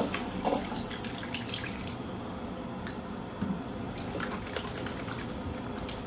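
Water dripping and splashing: a steady wash with scattered sharp drops.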